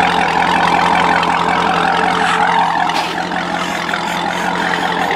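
2007 Corvette Z06's 7.0-litre LS7 V8 idling steadily through a freshly installed Corsa Extreme axle-back exhaust and H-pipe, heard right at the quad tailpipes.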